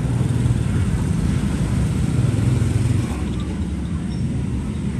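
A steady low rumble, like nearby motor traffic, that eases slightly about three seconds in.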